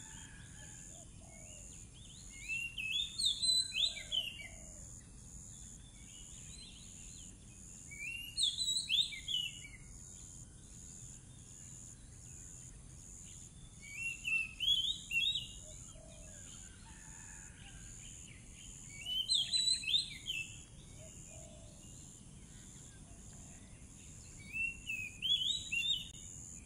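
Oriental magpie-robin (kacer) singing short, quick bursts of high whistled phrases, about one burst every five to six seconds, with a steady high-pitched whine underneath.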